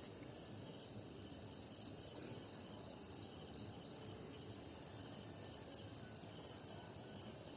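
Evening insects calling: one steady, high-pitched trill, with a second, higher chirp pulsing about three times a second.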